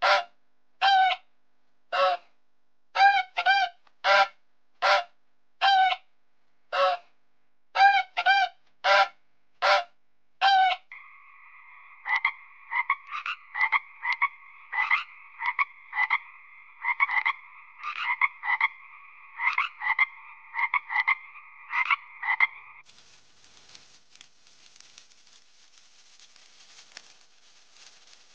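A white domestic goose honking in short repeated calls until about eleven seconds in. Then frogs croaking in short repeated calls over a steady, two-pitched chorus, which stops suddenly about five seconds before the end. Only a faint hiss follows.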